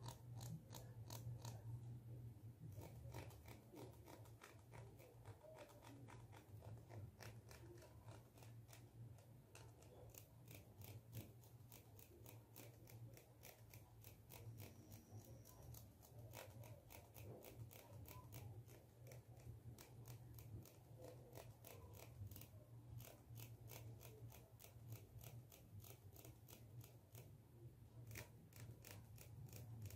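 Plastic comb being scratched close to a microphone: a quiet, continuous run of crisp ticks, a few a second, as its teeth are raked, over a faint low hum.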